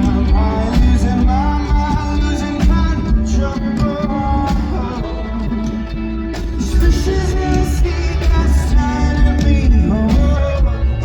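A rock band playing live: drums, bass and guitars with a male lead voice singing over them.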